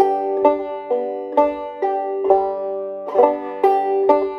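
Banjo played clawhammer style in a drop-thumb pattern: single plucked notes at a fairly even pace, about two a second, each ringing on into the next.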